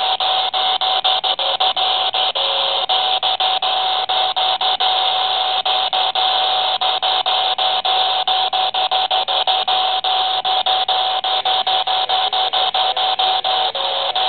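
Handheld CB radio tuned to channel 19 with no one transmitting, putting out loud, steady static hiss through its small speaker. A steady whistle tone runs under the hiss, and the noise is broken by quick regular ticks about four times a second.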